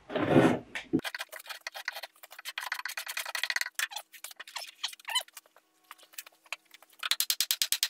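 Wood knocking on wood as a log-pole tenon is driven into a drilled mortise for a tight fit. There is one loud knock near the start, then a long run of quick, sharp taps, fastest near the end at about ten a second.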